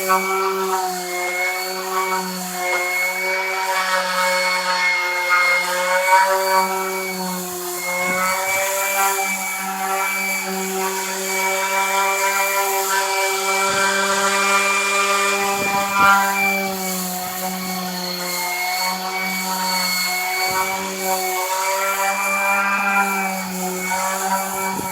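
Power sander running steadily, sanding the filler coat on a plywood-laminated wooden boat hull. Its hum wavers slightly in pitch as it is worked under load, with a hiss of abrasion over it.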